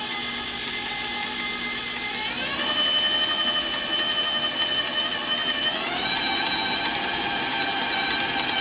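KitchenAid stand mixer's motor whining as its paddle beats flour into peanut butter cookie dough. The pitch steps up twice, about a third of the way in and again about two-thirds in, as the speed is raised from a slow start.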